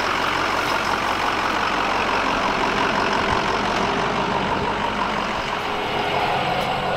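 Pickup truck engine idling with a steady hum.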